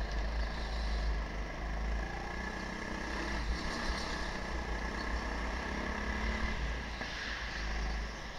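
Rental go-kart running at speed around a track, heard from its onboard camera: a steady drive sound over a heavy low rumble of vibration, with a faint rise in pitch about two-thirds of the way through.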